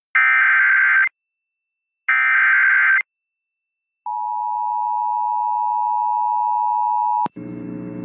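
Emergency Alert System SAME header data bursts: two one-second bursts of warbling digital tones, a second apart, ending the three-burst header of a severe thunderstorm warning. The two-tone EAS attention signal then sounds steadily for about three seconds and cuts off with a click, and a buzzing mix of lower tones follows near the end.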